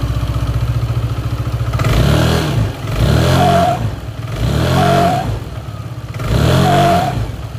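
Yamaha Aerox 155 scooter idling and being blipped about four times. Near the top of three of the revs the CVT gives a short, wavering 'nguk' noise, a fault whose cause is not yet known.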